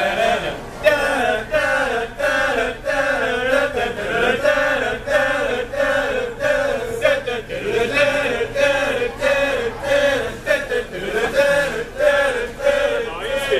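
Male a cappella group singing in harmony, several voices moving together in a short repeating rhythmic phrase, with a steady beat of sharp clicks about twice a second.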